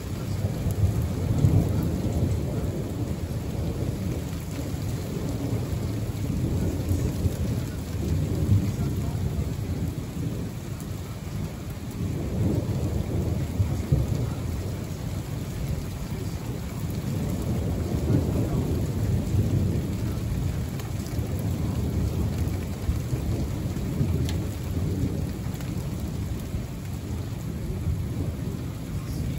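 Heavy rain falling steadily in a thunderstorm, with low rumbles of thunder that swell and fade several times.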